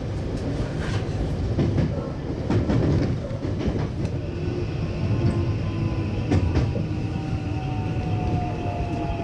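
Interior of a JR 521 series electric train crossing points into a passing loop, its wheels clicking over the rail joints and switches above a steady running rumble. From about two-thirds of the way in, a whine slowly falls in pitch as the train brakes for the station stop.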